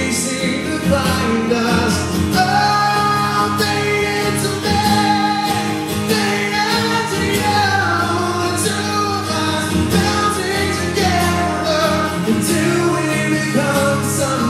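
Live rock band performing a song, with a male lead singer singing over guitar and the band's backing.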